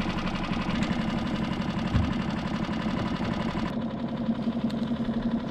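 Small boat engine, most likely the skiff's outboard, idling steadily with an even low hum, and a low thump about two seconds in.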